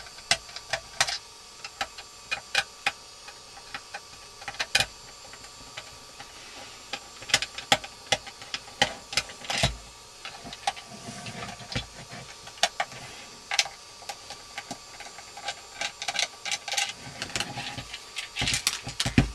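Small screws being undone from the base of a soldering station's casing: irregular sharp clicks and ticks of the screwdriver and screws, with a few brief scrapes as the case is handled.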